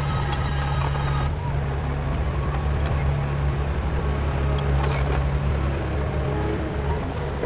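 Heavy diesel engine of earth-moving equipment running steadily under load, with a high-pitched whine for about the first second and a few light clanks about five seconds in.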